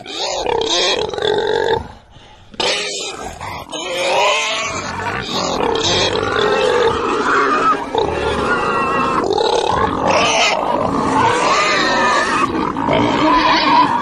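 Pig vocalising: a near-continuous run of pitched calls, with a short break about two seconds in.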